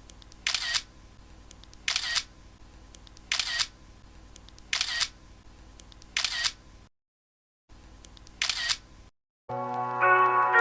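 Camera shutter clicks: six short, sharp clicks about a second and a half apart. Music starts near the end.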